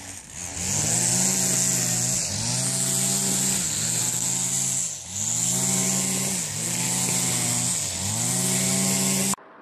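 A small engine running, its pitch sagging and recovering in a regular cycle about every second and a half, with a steady hiss on top. It cuts off suddenly near the end.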